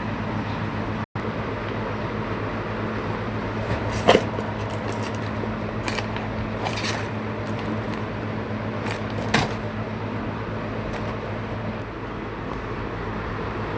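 A steady electrical or fan hum, with a few brief crinkles and rustles of packaging being handled, and a momentary drop-out about a second in.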